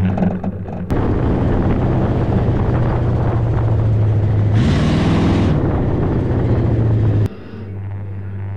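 Dirt-track race car engine running hard at a steady pitch, heard largely from inside the car's cockpit. About halfway through the pitch rises briefly, together with a burst of hiss. The sound cuts abruptly louder about a second in and quieter near the end.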